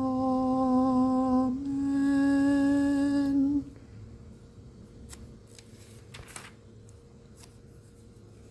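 A man sings an unaccompanied "Amen" as two long, steady held notes, closing a hymn; it stops abruptly about three and a half seconds in. Then a quiet room with a few faint clicks and rustles.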